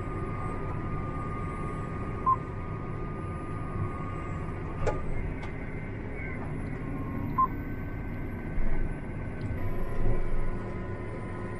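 Tractor engine running steadily, heard from inside the cab while pulling a land roller. Two short electronic beeps come about five seconds apart, and a few low bumps come near the end.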